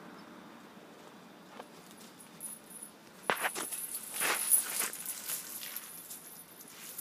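Two dogs playing: a run of sharp scrapes and rustles from paws scuffing through dry dirt and brush, with a light metallic jingle, starting about three seconds in.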